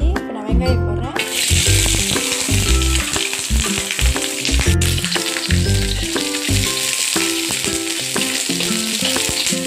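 Chopped red onion dropped into hot oil in a wok and frying with a steady sizzle that starts suddenly about a second in.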